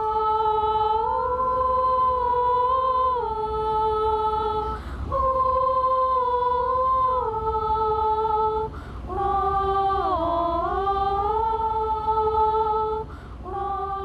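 Female voices singing a slow unaccompanied melody in long held notes, with short breaths between phrases.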